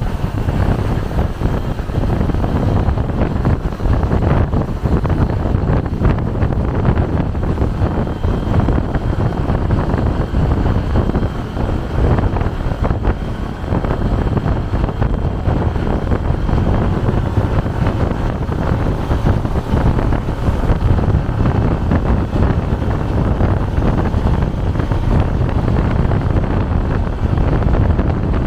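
Steady road and engine noise of a moving vehicle, with wind buffeting the microphone.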